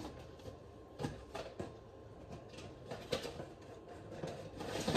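Cardboard packaging being handled: rustles with scattered light taps and scrapes as small product boxes are dug out of a shipping box.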